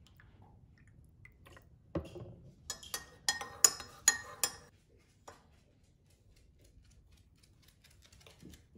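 A dull knock about two seconds in, then a metal spoon stirring coffee in a ceramic mug, clinking sharply against the sides several times in quick succession, with one last clink a moment later.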